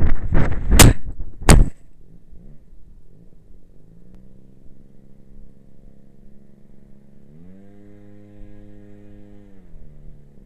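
FPV quadcopter crashing into the ground: three sharp hits in the first second and a half as it tumbles, then it lies still. A faint steady hum follows, rising in pitch for about two seconds near the end before dropping back.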